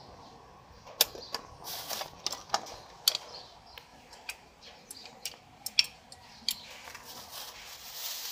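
Sharp metallic clicks and clinks of rear drum-brake hardware on a Nissan B-series car (shoe, springs and parking-brake lever) being pried and worked loose with pliers. They come irregularly, about fifteen in all, the loudest about a second in and again near three and six seconds.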